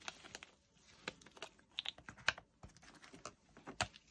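Small clear plastic storage pots and their lids clicking and tapping together as they are handled, in irregular sharp clicks, loudest about two seconds in and again near the end.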